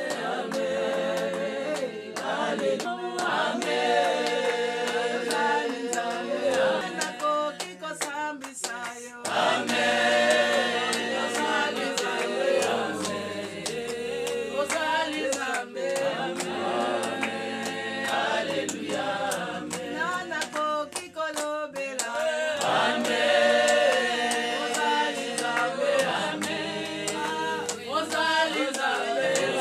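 A group of women singing a hymn together, phrases of long held notes with short breaks between them.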